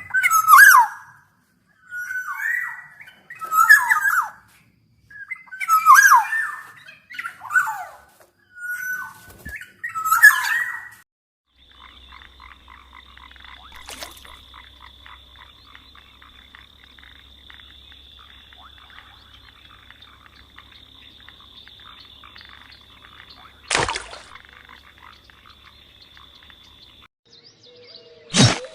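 A bird giving harsh, croaking calls about every two seconds for the first ten seconds or so. Then a quieter, steady high-pitched buzzing trill with a low hum under it, broken by a sharp click or two.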